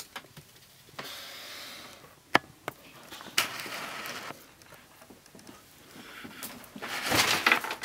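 A person clearing shaving cream from his face: short hissing, breathy and rubbing noises, with a sharp click about two and a half seconds in and a louder hiss near the end.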